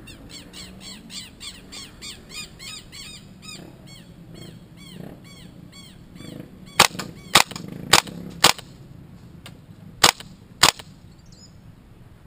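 A bird chirps in a quick repeated series for the first few seconds. Then an airsoft rifle fires six sharp single shots: four in steady succession, then two more after a short pause.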